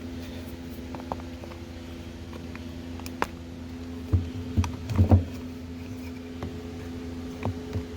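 A steady mechanical hum, with a few sharp knocks and clunks of handling about four to five seconds in.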